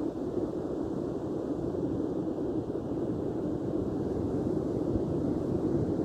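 Steady beach ambience: a low, even rumble of surf and wind, with no distinct wave crashes.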